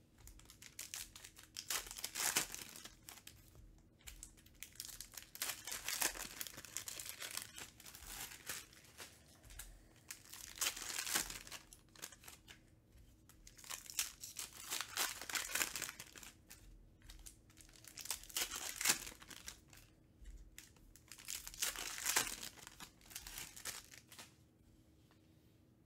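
Foil trading-card pack wrappers crinkling and tearing as they are ripped open by hand, in repeated bursts.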